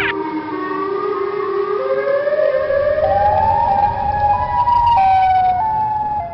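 A siren wailing, its pitch rising slowly for about four seconds and then stepping back down near the end.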